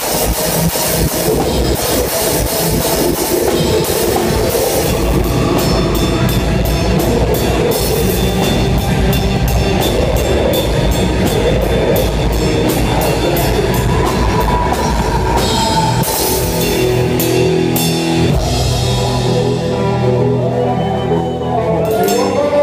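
Live rock band playing, heard from right at the drum kit: loud drumming with fast repeated cymbal strokes under bass and guitar. About three-quarters of the way through the drumming drops out, leaving held bass and guitar notes.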